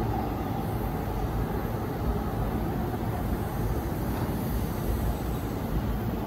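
Steady low hum of a JR Chūō-Sōbu Line electric commuter train standing at the platform with its on-board equipment running.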